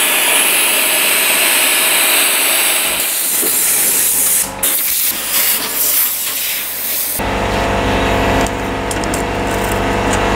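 Portable sandblaster hissing as it blasts grit against the rusty sheet steel of a truck door, the hiss wavering and breaking up as the nozzle moves. About seven seconds in the hiss stops and a steady motor hum takes over.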